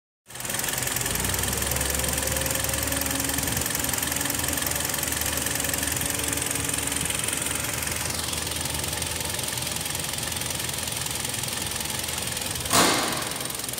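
Hyundai ix35's 2.0-litre four-cylinder engine idling steadily. A short loud burst of noise comes near the end.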